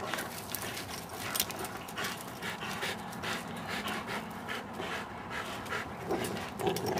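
Two American bulldogs breathing hard and panting in quick noisy breaths while gripping and tugging on a spring pole, with a couple of louder dog sounds near the end.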